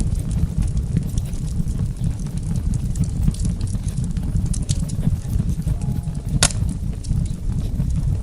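Wood fire burning with a steady low rumble and scattered crackles, and one sharp, louder pop about six and a half seconds in.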